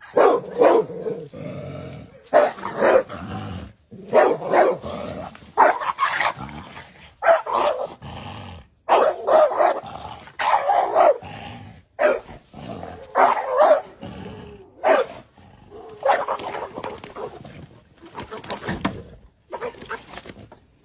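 A dog barking and growling in repeated loud bursts, about one every one to two seconds, as it attacks a snake.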